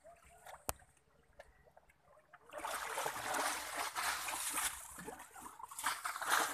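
A single sharp click less than a second in. From about two and a half seconds in, a sustained stream of water splashing and trickling follows.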